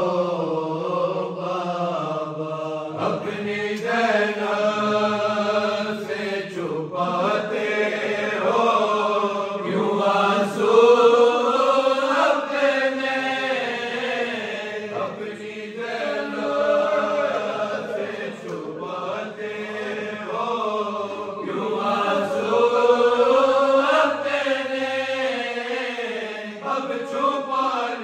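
Men's voices chanting a noha, an Urdu mourning lament, in long, drawn-out phrases that rise and fall in pitch.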